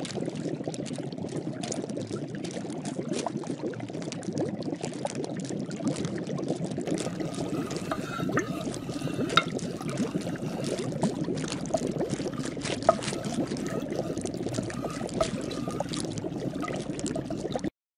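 Liquid bubbling in a cauldron: a steady, dense crackle of small pops that stops suddenly near the end.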